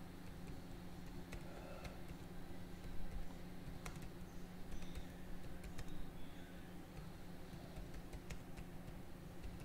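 Typing on a computer keyboard: scattered, irregular key clicks as a short message is typed, over a steady low hum.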